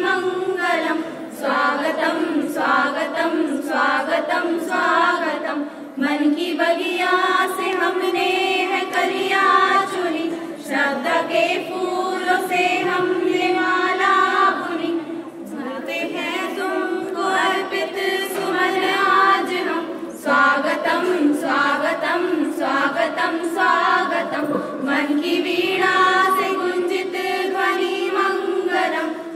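A small group of women singing together without instruments, in long phrases with a few brief pauses between them.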